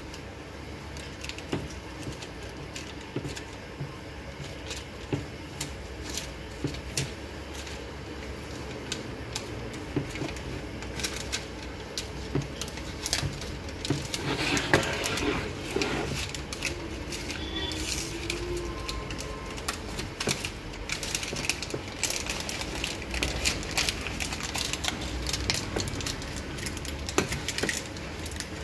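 Protective plastic film being peeled off a metallic-finish amplifier front panel: a crackling, crinkling sound with many small clicks and taps. A longer, louder tearing stretch comes about halfway through.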